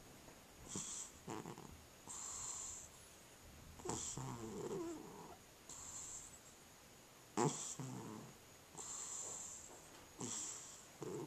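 Domestic tabby cat snoring in its sleep: rasping breaths every second or two, some with sharp snorts, the loudest snort about two-thirds of the way through. The irregular, snorting breathing is what the owner takes for sleep apnea.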